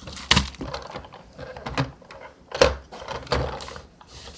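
Small objects being handled and set down: a few irregular knocks and clicks with light clatter between them.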